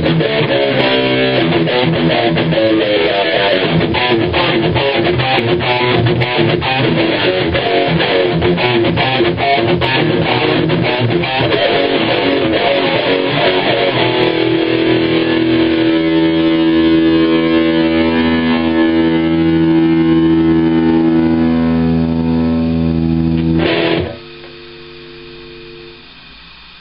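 Epiphone Les Paul Custom Pro played through a Blackstar HT5 amp and Marshall 1912 cabinet with a distorted tone. It plays a fast, tightly picked metal rhythm riff, then lets chords ring out. About 24 seconds in, the chords are cut off short and a few quiet notes ring over amp hum.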